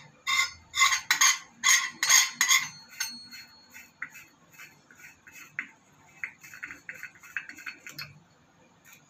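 Metal flush-valve spindle sleeve being turned anticlockwise by hand, giving a run of sharp metallic clicks, about two to three a second. The clicks are loud for the first three seconds, then fainter and quicker, and stop about eight seconds in.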